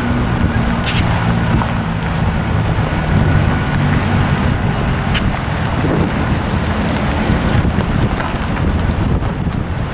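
CSX diesel freight locomotives passing close by, their engines running with a steady low drone of several tones over the rumble of the train rolling on the rails.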